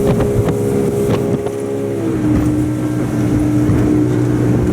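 Motorboat engine running steadily, its note dropping as the throttle eases about two seconds in, with a few short knocks near the start.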